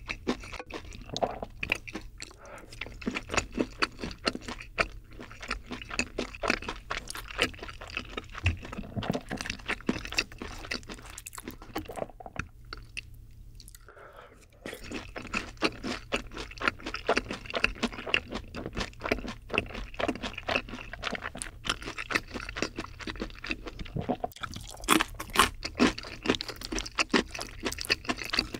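Close-miked chewing of crispy boneless fried chicken, with many crunches. There is a short pause about halfway through, then the crunching resumes, loudest near the end.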